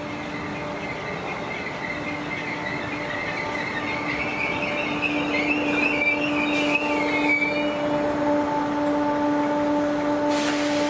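Merseyrail electric multiple unit approaching, its steady motor hum growing louder. A wavering high squeal sounds through the first half, and a rush of noise comes in near the end as the train draws level.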